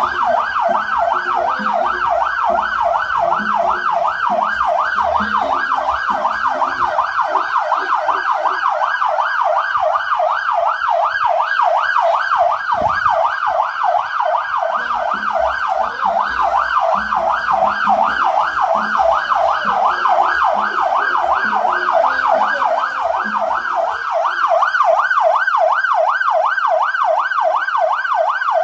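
Electronic siren sounding a fast up-and-down yelp, steady throughout, with a low vehicle rumble underneath that stops near the end.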